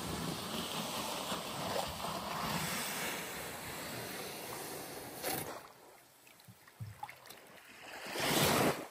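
Rushing noise of wind and small waves at a sandy shoreline. It drops away a little over halfway through, then swells up loudly again near the end.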